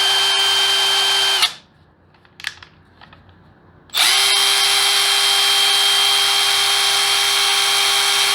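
Cordless right angle impact wrench spinning free at full speed in forward with no load, so it runs as a steady high whine without hammering, as for an RPM reading. It stops about a second and a half in, and a couple of small clicks follow. About four seconds in it spins up again and runs steadily.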